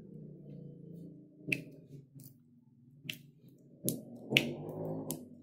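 Four sharp metallic clicks, irregularly spaced, as a surgical steel intramedullary pin in a hand chuck is worked at the bone, over a low hum that fades and comes back near the end.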